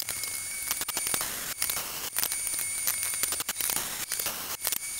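Electric arc welding on steel: a steady hiss broken by many irregular sharp clicks, with spatter sparks showering down.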